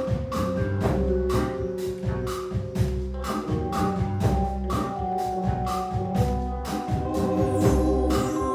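A live band playing: a drum kit keeps a steady beat under held melodic notes that shift pitch every few seconds.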